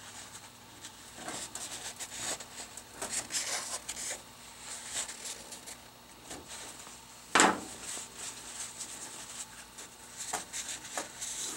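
Paper shop towel rubbing and scrunching as the inside of a Hydro-Gear hydraulic pump case is wiped clean of oil, with one sharp knock about seven seconds in.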